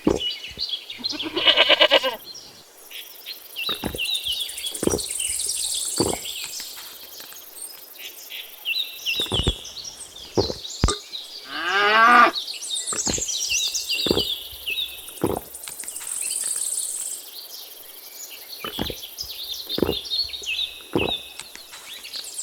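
Farm animal calls: one short call about a second in and a longer call rising in pitch about halfway through. Between them run steady bird chirping and a string of sharp clicks or knocks every second or so.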